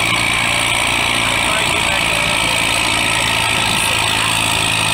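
Antique tractor engine running steadily at a low, even speed, over a constant outdoor hiss; its low hum fades for a couple of seconds about halfway and then returns.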